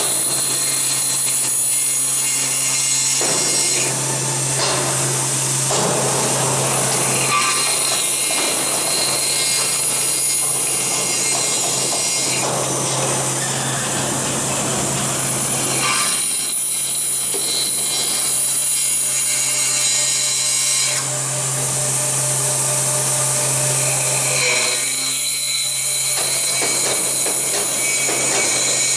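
Aluminium profile CNC machining center milling an aluminium profile: a steady motor hum and a high spindle whine. The cutting noise of the tool in the aluminium comes and goes several times as the cuts start and stop.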